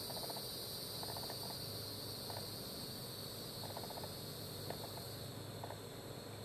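Steady high-pitched insect chorus. Short bursts of rapid, lower-pitched pulsing chirps come about once a second.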